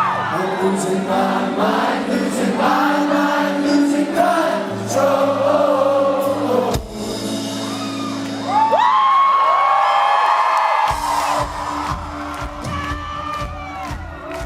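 Live indie rock band playing in concert: a male lead voice sings gliding, held notes over bass, guitar and drums, with audience noise underneath. The bass and drums get heavier about eleven seconds in.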